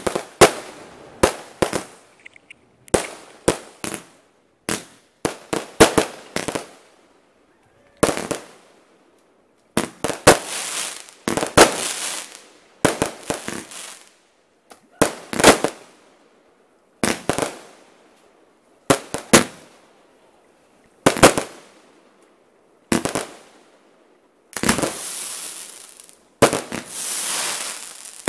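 Aerial firework shells bursting in a professional display: a steady run of sharp bangs, a few every couple of seconds, each dying away. Some are followed by longer hissing crackle, most of all near the end.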